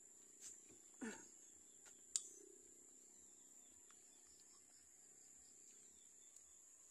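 Faint, steady high-pitched chirring of insects, with a few light clicks and one sharp tick about two seconds in as ripe jackfruit bulbs are pulled apart by hand.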